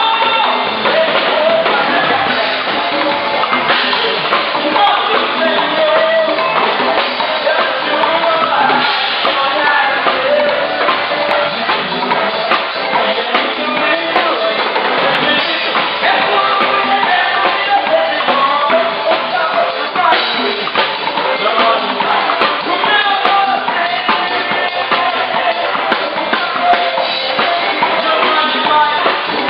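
Live band music: a drum kit keeping a steady beat under a melody line, loud and continuous.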